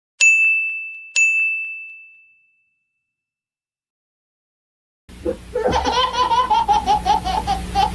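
Two bright dings on one high ringing tone, about a second apart, each fading out, followed after a silent gap by laughter starting about five seconds in.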